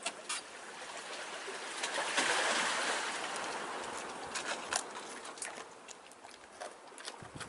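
Seawater lapping and trickling at a rocky shore and slipway. A wave washes in about two seconds in and slowly fades, with small splashes and drips throughout.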